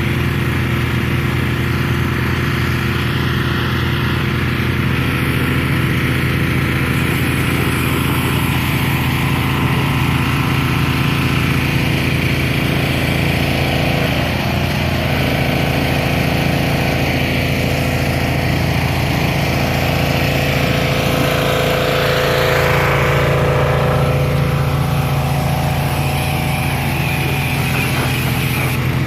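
An engine running steadily, getting slightly louder about three-quarters of the way through.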